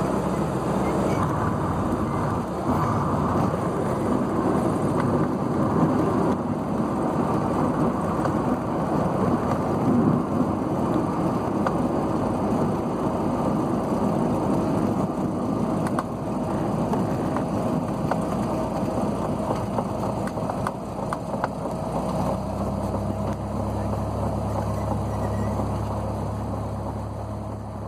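Inside a Cessna 172SP's cabin on the runway: a loud rushing noise of airflow and rolling, with the four-cylinder Lycoming engine running low beneath it. About 22 seconds in, the rushing eases and the engine's low, steady drone comes through.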